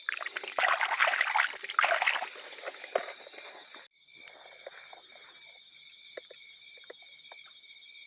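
Shallow river water splashing and sloshing in several bursts for about three seconds as a released traíra thrashes away. After a sudden cut, a steady high-pitched chorus of night insects with a few faint ticks.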